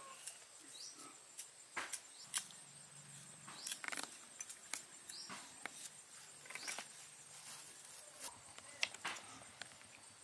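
Irregular sharp taps and clicks, about one or two a second, with a few short, high rising chirps between them.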